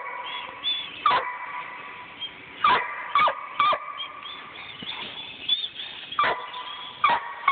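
Five-month-old hound pup barking treed at the base of a tree: about six sharp single barks at uneven intervals, with short whines between them.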